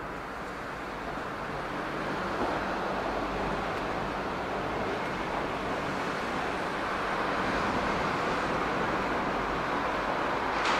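Yard switcher slowly hauling a set of 115-series electric cars across the tracks: a steady rumble and hiss of engine and rolling wheels that grows gradually louder.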